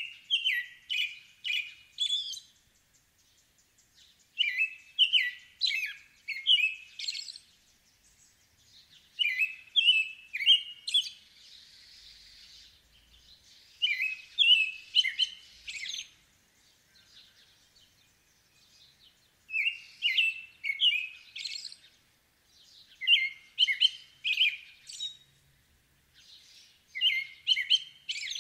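American robin singing its caroling song: about seven bouts of short, clear whistled phrases, each bout about two seconds long, with pauses of about two seconds between them.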